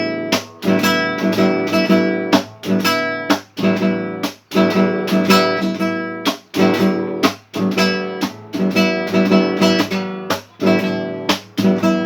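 Acoustic guitar strummed in a steady rhythm, with a short break in the sound about every two seconds.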